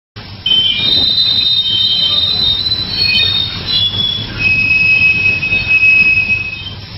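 Railway brake squeal with no CHFC friction-control application: a loud, high-pitched screech over a low rumble. It is made of several shifting tones at first, then settles into one steady squeal from about halfway through, which stops near the end and leaves only the rumble.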